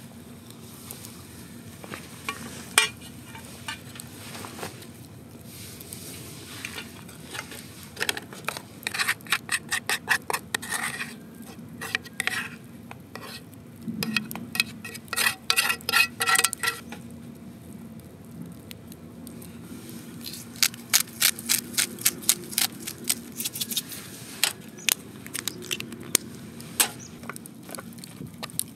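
A metal cooking utensil scraping and clinking against a frying pan and an aluminium Trangia mess tin, in several runs of quick strokes, as scrambled egg is scraped into rice and stirred through it.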